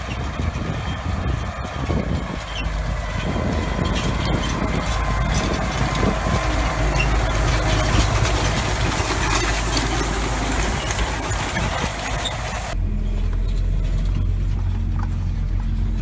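Tractor engine running steadily as it tows a hay tedder through cut hay, under a broad hiss. About thirteen seconds in the hiss cuts out abruptly, leaving a steadier, lower engine drone.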